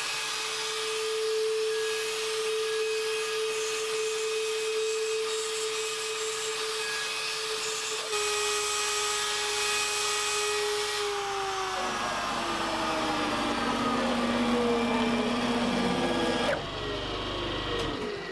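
Mafell FM 1000 router motor on a DIY CNC router, spinning at about 25,000 rpm with an 8 mm chamfer mill cutting chamfers into 5083 aluminium: a steady high hum with cutting noise. About 11 seconds in, the pitch starts sliding down in several falling tones as the spindle spins down.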